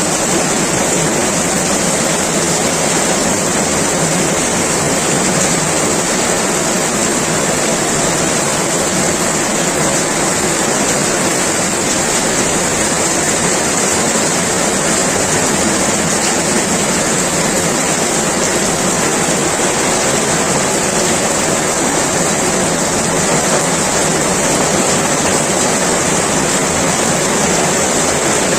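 Heavy rain pouring down, a loud, steady hiss that holds even throughout.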